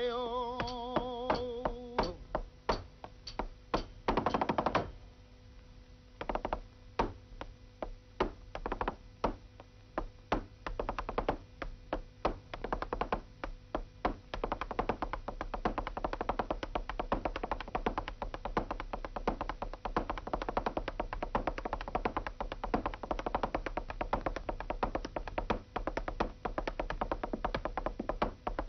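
A male flamenco singer ends a line on a long wavering note with no guitar. Then a dancer's zapateado footwork follows: separate heel and toe stamps, one quick flurry a few seconds in, speeding into a fast, nearly continuous rattle from about halfway.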